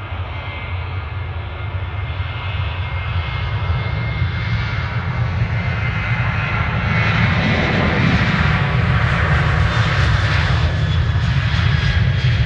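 Jet engines of a Boeing 737-800 on the runway at high power: a deep rumble under a hissing whine that grows steadily louder as the airliner rolls past, loudest a little past the middle.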